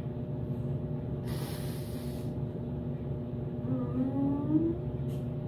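A woman sniffs hard through her nose for about a second, then lets out a short rising whimper, over a steady low hum.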